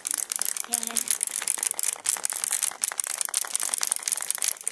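Several clockwork wind-up hopping toys running at once, their mechanisms whirring and their feet clattering in rapid, irregular clicks.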